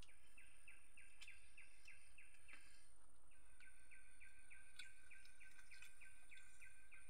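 A bird calling in an even series of short repeated notes, roughly three a second, with a brief pause a little past two and a half seconds in. A few faint clicks now and then.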